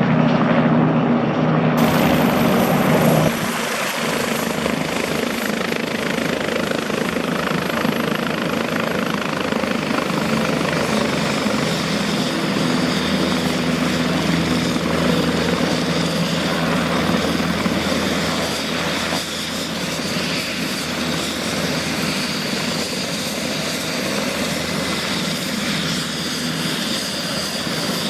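Helicopter turbine engine and rotor running, with a thin, high, steady turbine whine. The sound turns quieter and changes character about three seconds in.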